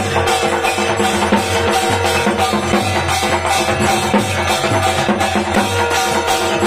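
Devotional drumming at an aarti, a quick, even beat of about four strokes a second, with steady ringing tones held over it.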